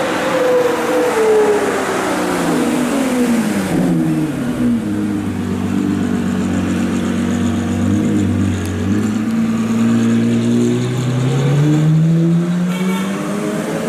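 Ferrari 812 Superfast's V12 engine as the car drives slowly. Its note falls through the first few seconds and holds low and steady for a while, then climbs again from about nine seconds in as the car accelerates.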